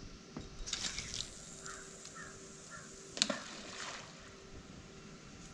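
Quiet outdoor scene by water. About a second in there is a brief rattle as a fishing rod is cast. Three short bird calls follow, then a single sharp knock a little after three seconds in.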